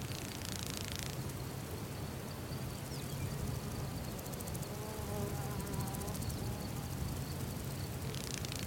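An insect buzzing, its pitch wavering, over a steady low hum of outdoor background noise.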